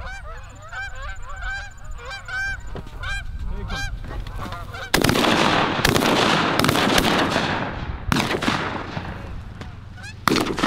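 A flock of Canada geese honking as they come in. About halfway through, shotgun fire breaks out, several blasts close together with more near eight seconds and just before the end.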